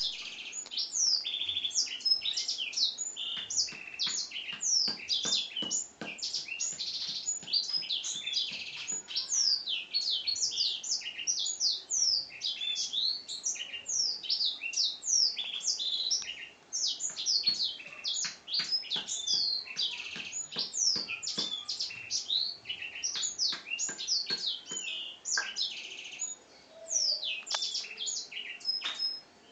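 Black-throated canary singing a long, continuous song of fast chirps, trills and quick falling whistles, broken only by a few short pauses.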